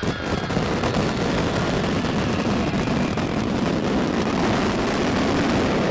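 Fireworks finale: many shells bursting at once, their booms and crackle blurring into one steady, dense wash of noise.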